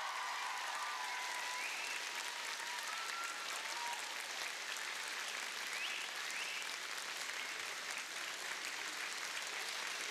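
Audience applauding steadily, with a few faint voices calling out over the clapping.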